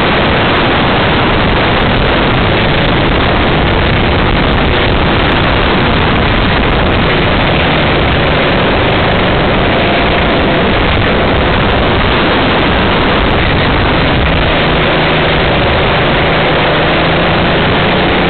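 Racing kart engine running at speed, heard onboard as a loud, rough rush of engine and wind noise. A steadier engine note comes through from about 14 seconds in.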